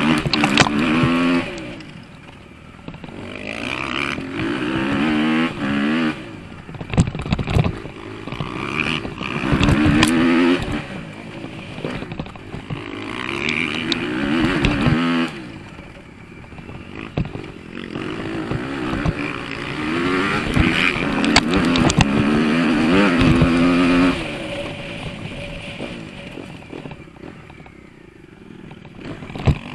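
Motocross dirt bike engine running hard, its pitch repeatedly rising under throttle and dropping back as the rider backs off, with sharp knocks and rattles from the bike on the rough dirt track.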